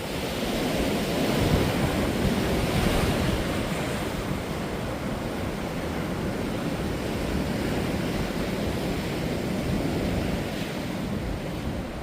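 Ocean surf breaking on a beach: a continuous roar of waves that swells about a second in and again later before easing, with some wind buffeting the microphone.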